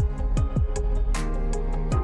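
Background music: sustained chords over a beat of deep kick drums that drop in pitch, with a couple of cymbal-like hits.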